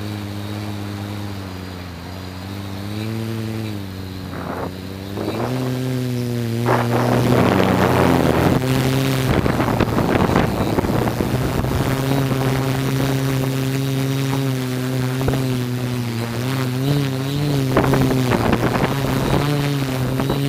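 Camera drone's motors and propellers whirring, the pitch shifting up and down as it manoeuvres, with a louder rushing noise coming in about a third of the way through.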